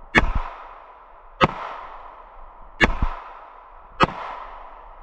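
Four gunshots fired at a steady pace, about one every 1.3 seconds, each sharp crack followed about a fifth of a second later by a duller low thump.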